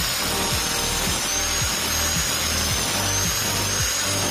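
Angle grinder running with a high, slightly wavering whine as its thin disc grinds into the steel outer ring of an old bearing, throwing sparks near the end. Background music with a steady beat plays over it.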